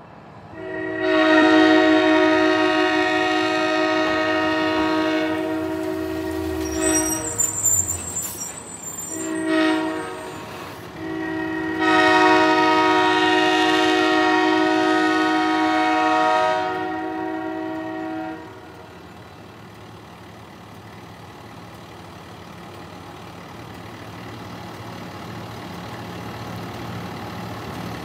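GE 65-ton diesel switcher sounding its multi-note air horn: a long blast, a short one, then another long blast. After that comes the low rumble of the locomotive's diesel engine, growing slowly louder as it approaches.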